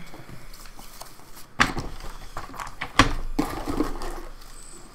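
Small cardboard parts box being opened and rummaged through by hand: two sharp knocks about a second and a half apart, each followed by rustling and light clatter of parts.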